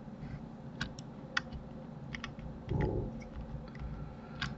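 Computer keyboard and mouse clicks while working in software: scattered single clicks, with a quick run of keypresses near the end as Ctrl+Z is pressed four times. A short muffled thump comes about three seconds in.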